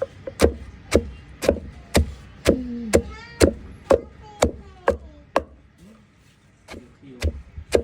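Knife chopping on a cutting board: sharp, even strikes about two a second, stopping for about a second and a half near the end, then starting again.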